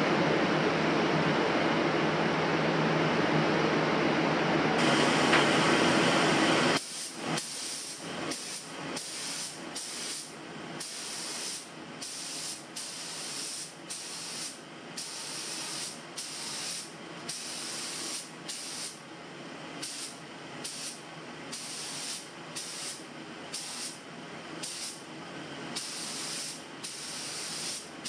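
A gravity-feed automotive paint spray gun on compressed air, hissing in short bursts about once a second, some held longer, as the trigger is pulled and released. Before it, for about the first seven seconds, a loud steady noise runs and then stops abruptly.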